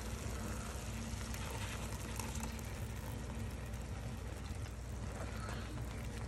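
Steady low hum under a faint, even hiss from a pan of masala cooking on the hob, as thick cashew-onion paste is added.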